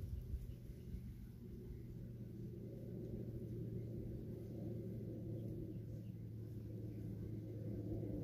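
A steady low hum with a faint rumble beneath it, holding level throughout with no clear impacts.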